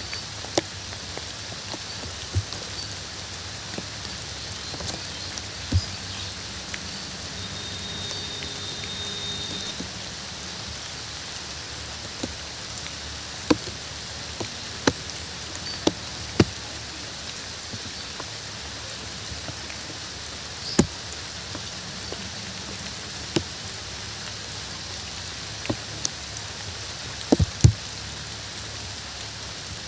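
Steady rain falling, with about a dozen louder single drops landing close by, scattered irregularly through the rain.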